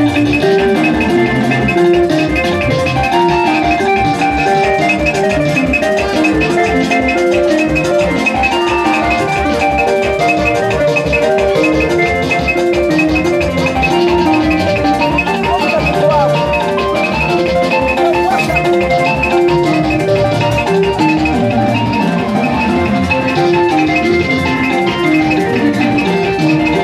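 Upbeat music with a steady, fast drum beat and a bright melody of short repeated notes.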